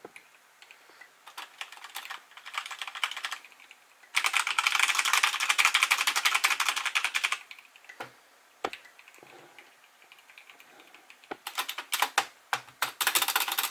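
Typing on a TM680 mechanical keyboard with its stock brown tactile switches: scattered keystrokes, a few seconds of fast continuous typing, a pause, then more typing near the end. The typist calls its sound garbage.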